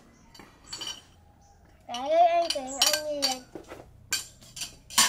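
Metal spoon clinking and scraping on a plate of chopped garlic and green onion, a short click about a second in and a run of clinks near the end. A voice sounds once in the middle for about a second and a half, louder than the clinks.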